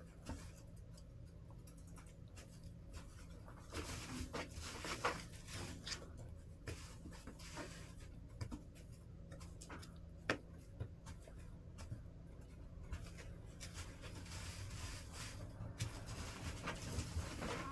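Hens pecking and scratching about in pine-shavings litter: scattered light scratches and taps, with a few sharper pecks, over a steady low hum.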